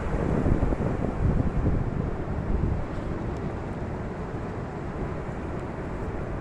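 Wind buffeting the microphone: a steady low rumbling noise, gustier in the first three seconds and then settling a little.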